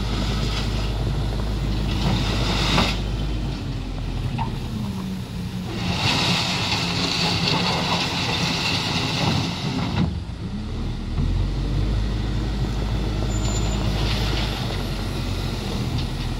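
Heavy truck diesel engine running with a steady drone, its pitch shifting about four seconds in, with a hiss from about six to ten seconds in.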